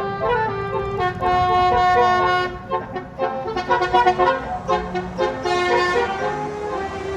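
Bus telolet horn, a Basuri multi-trumpet horn, playing a tune: a few held notes that step in pitch, then a run of short choppy notes in the second half, over traffic noise.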